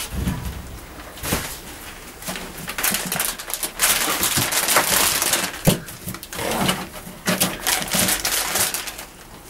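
Dry rustling and crunching of hay bedding, loudest in the middle, with scattered short clicks and knocks as rabbits move about in it.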